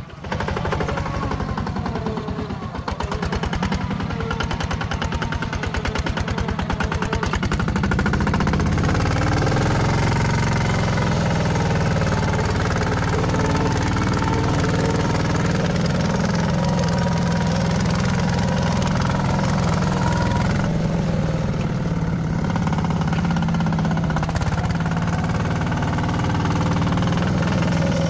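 Heavy machinery's diesel engine running hard with a fast clatter, getting louder and steadier about eight seconds in.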